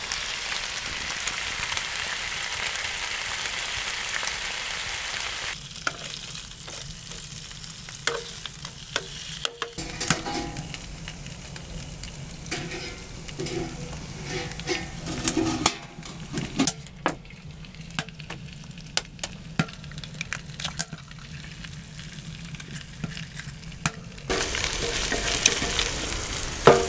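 Bacon and a fried egg sizzling in a frying pan on a woodstove. The sizzle is loud and close for the first few seconds and again near the end. In the long stretch between, the frying is fainter, with scattered clicks and metal clinks from tongs and the stove's oven.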